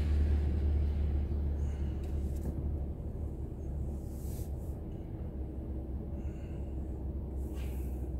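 Low, steady rumble of a car idling, heard from inside its cabin while stopped in traffic, easing off slightly over the first few seconds as the car settles at a standstill.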